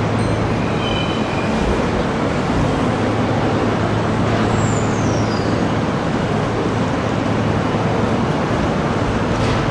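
Kintetsu 22000 series electric train rolling slowly into a station platform, over a steady low hum, with a brief high whine that falls in pitch about five seconds in.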